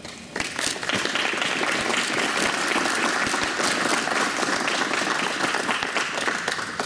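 Audience applauding: dense, steady clapping that starts just after the opening.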